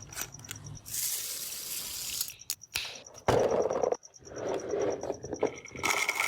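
Toy blaster spraying, heard as hissing: one longer spray burst about a second in and a shorter one near the end, with watery noise and clicks between them.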